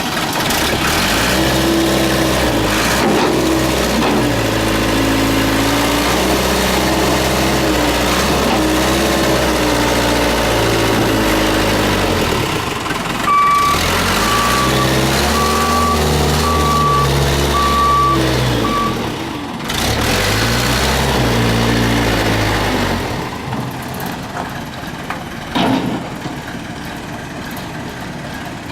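Case 580E backhoe's diesel engine running just after start-up, its speed rising and falling several times. A reversing beeper sounds about seven times in the middle. The engine drops to a quieter idle about three-quarters of the way through.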